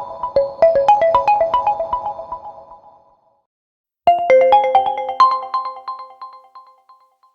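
OPPO A16k phone ringtones: one ringtone's quick run of short melodic notes fades out about three seconds in. After a second of silence a different ringtone starts, a short rising phrase of notes that rings out.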